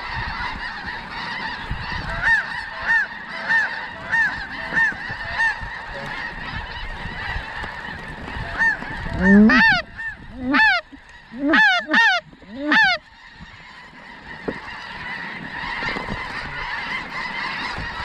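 A large flock of snow geese calling: a steady din of overlapping high-pitched honks, with a run of louder, closer honks about halfway through.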